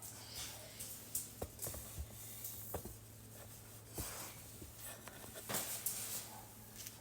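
Soft brush strokes through a dog's coat, with scattered small clicks, over a faint steady low hum.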